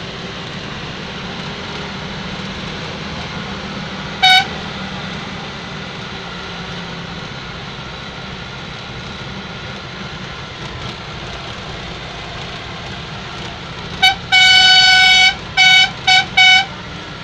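Vehicle horn heard from inside a moving vehicle over a steady engine and road hum. There is one short toot about four seconds in. Near the end there is a quick toot, a blast of about a second, and three short toots.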